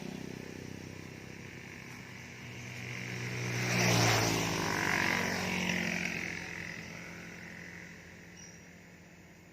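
A two-stroke chainsaw engine runs at low speed with a steady drone. A louder rushing noise swells to a peak about four seconds in, then fades away, and everything grows quieter toward the end.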